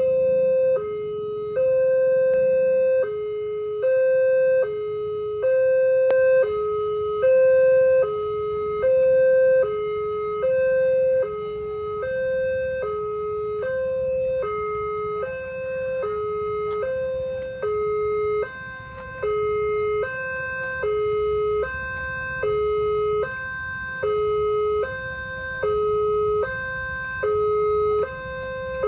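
Railway level-crossing warning alarm sounding at the barrier gate: an electronic two-tone ding-dong, high then low, repeating evenly about once every second and a half. It signals that a train is approaching and the barriers are down.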